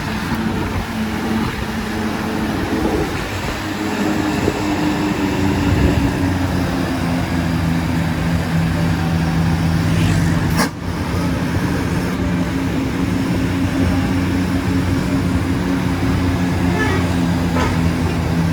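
Bus engine running steadily with road traffic noise around it; a sharp click about ten and a half seconds in.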